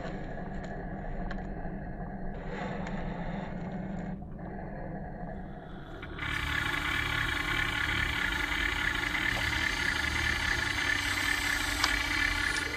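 Radio-controlled dump truck's motor and gears running steadily, getting louder with a higher whine from about halfway through.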